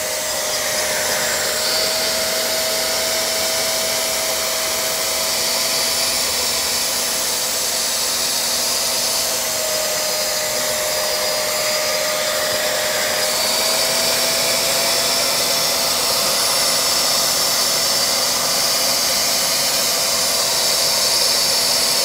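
Wet-pickup vacuum's motor running steadily under suction while drawing water out of a rug, with a constant whine whose pitch wavers slightly.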